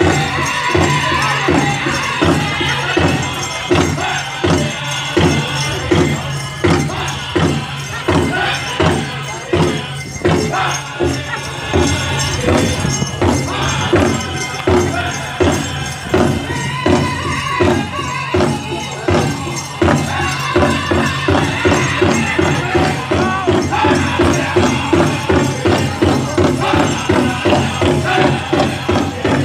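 Pow wow drum group playing an ebb-and-flow chicken dance song: a steady unison beat on a big drum, about two strokes a second and picking up a little in the last several seconds, under high singing voices, with a jingling that sounds like dancers' bells.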